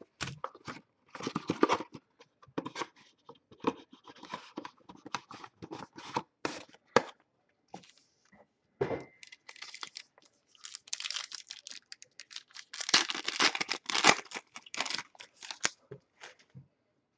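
Plastic wrapping on a box of football trading cards and its packs being torn open and crinkled in a run of irregular tears and rustles, busiest near the end.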